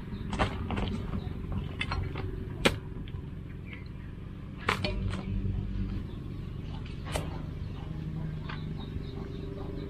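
Long-bladed knife chopping through a young green jackfruit on banana leaves: sharp knocks at irregular intervals, the loudest about three, five and seven seconds in, over a steady low rumble.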